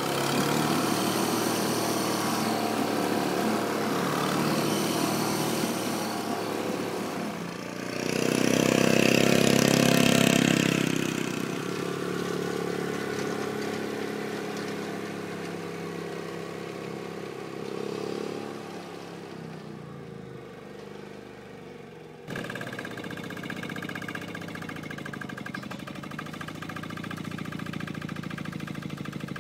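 Tractor engines running: first a single-axle tractor's engine chugging along, getting loud between about eight and eleven seconds in. About twenty-two seconds in the sound changes abruptly to another tractor engine running steadily with an even pulse.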